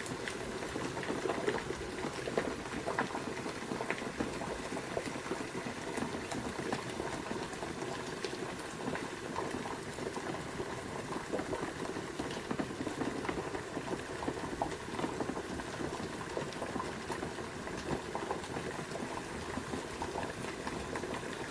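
Water at a steady rolling boil, bubbling with many small pops.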